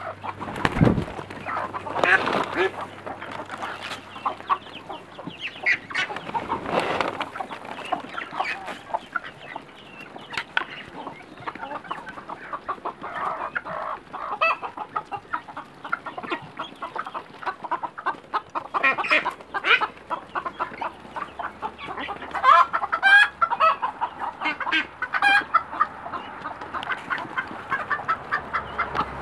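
Chickens clucking while a flock of chickens and ducks feeds, over a dense run of short ticks as bills pick grain off the ground; the clucking grows louder and more frequent near the end.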